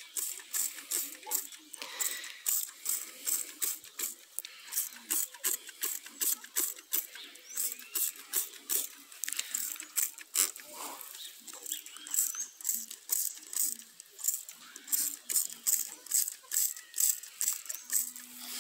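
Handheld trigger spray bottle spritzing liquid in quick repeated squirts, about two or three a second.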